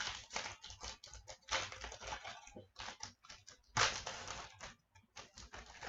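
A foil pack of 2015/16 O-Pee-Chee Platinum hockey cards being torn open by hand, its wrapper giving a series of short crackling rips and crinkles. The loudest rip comes about four seconds in.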